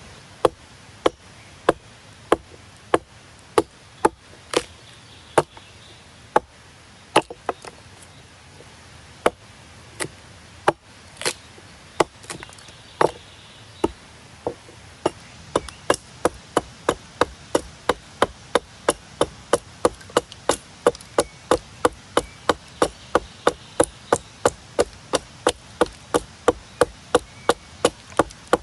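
Hatchet chopping into a large, weathered log, hewing its top flat: sharp single strikes into the wood. They come slow and uneven at first, then settle into a steady run of about two strikes a second from about halfway through.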